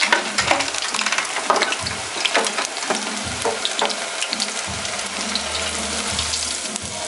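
Battered julienned carrot and vegetable tempura deep-frying in a saucepan of hot oil: a steady sizzle with many small pops and crackles. Near the end a skimmer stirs the frying strips.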